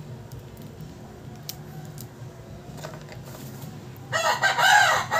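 A rooster crowing about four seconds in: one long, loud call that falls in pitch as it dies away. Before it, a few faint light clicks of a small hand tool on the phone's frame.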